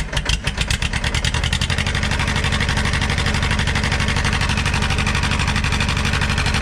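Tractor diesel engine revved up: it climbs over the first couple of seconds, then holds at high revs with fast, even exhaust beats. It runs clean, with no knocking from inside the engine.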